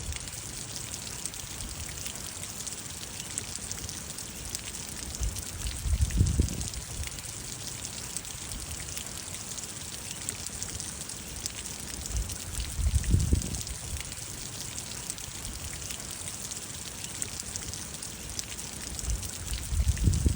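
Steady rain falling, with individual drops ticking close by. Three brief low rumbles come about seven seconds apart: about six seconds in, again about thirteen seconds in, and near the end.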